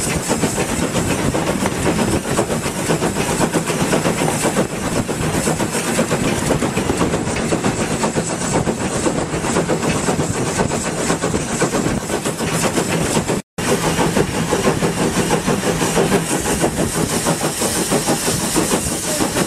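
Steam tank locomotive under way, heard from its footplate: the steady running noise of the engine and its wheels on the rails, broken by a moment of silence about two-thirds through.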